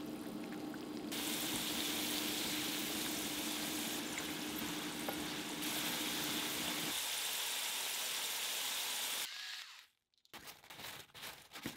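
Oil sizzling steadily as flour- and starch-coated potato wedges shallow-fry in a frying pan. Near the end the sizzle cuts off suddenly, followed by a few short, irregular crackling noises.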